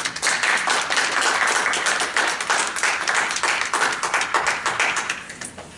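A small group of people applauding, dense clapping that thins out and stops about five seconds in.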